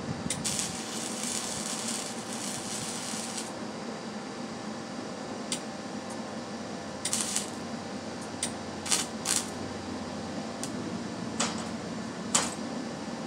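Wire-feed welding arc crackling for about three seconds near the start, then a string of short crackling bursts of a fraction of a second each, over a faint steady hum.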